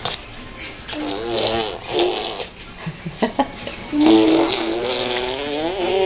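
A baby vocalizing while bouncing: short bursts of wavering, pitched vocal sounds about a second in, then a longer drawn-out stretch from about four seconds in, with a couple of short knocks between them.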